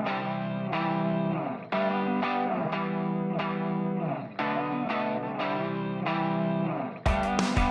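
Background music: an effects-laden electric guitar playing a repeating phrase, with a drum beat and bass coming in near the end.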